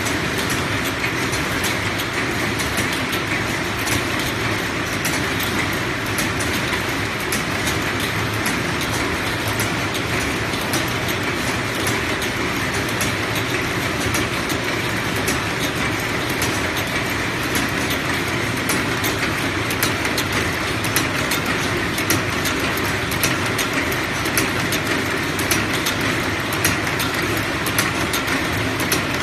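Automatic hinge-spring forming machine running steadily as it bends wire into double torsion springs, a continuous mechanical clatter of rapid clicks.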